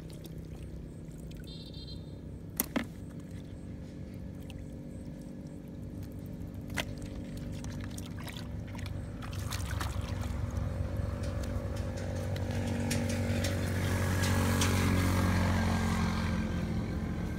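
A small engine drones steadily, swelling louder toward the end, with wet splashing and scraping of hands working in a muddy water-filled hole and two sharp clicks a little over two seconds in.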